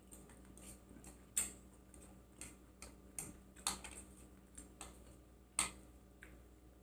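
Close-miked mouth sounds of someone eating: irregular wet clicks and smacks of chewing and lips, about eight spread over a few seconds.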